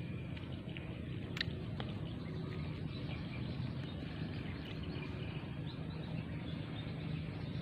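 Outdoor ambience: a steady low rumble with faint bird chirps scattered through it, and a single sharp click about a second and a half in.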